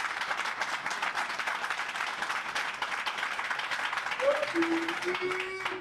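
Applause: many people clapping, with a voice calling out briefly near the end.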